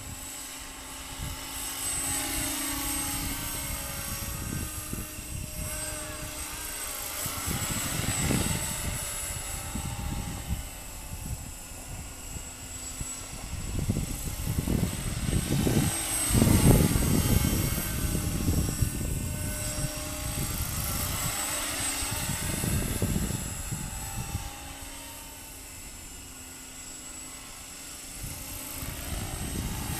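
Radio-controlled Trim Accurate 550 helicopter in flight. The whir of its rotor and drive runs steadily but swells and fades as it moves around, loudest a little past halfway. It takes on a sweeping, phasing tone as it passes.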